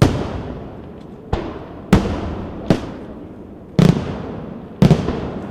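Fireworks going off: six loud bangs at irregular intervals about a second apart, each trailing off in a long echo.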